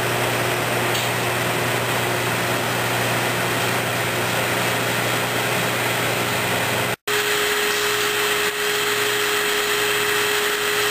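Open-bowl oil centrifuge running: a loud, steady whir with a low hum and one steady tone. It drops out for a moment about seven seconds in, then runs on with the tone a little higher.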